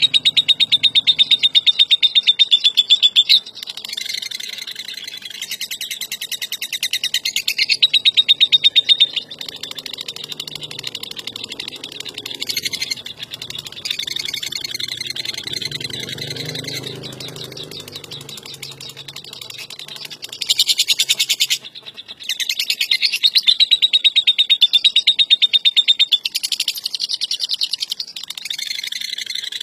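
A lovebird's ngekek: a long, very rapid, harsh chattering trill. It comes in several loud stretches, at the start, around eight seconds in and again in the last third, with softer chatter between them.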